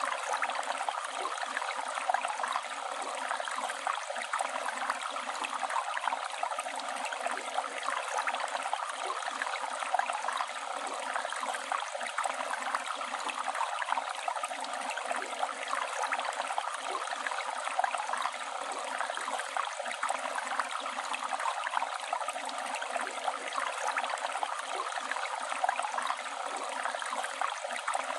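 Flowing river water rushing and burbling steadily.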